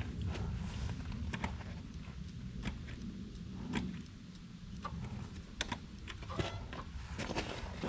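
Scattered sharp clicks and light metallic jingling, like keys or gear being handled, over a low steady rumble.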